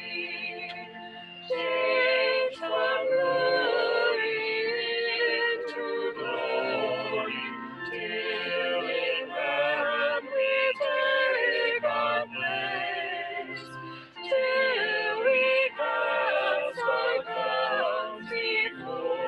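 Music with singing voices, a choir-like sung piece with held, wavering notes.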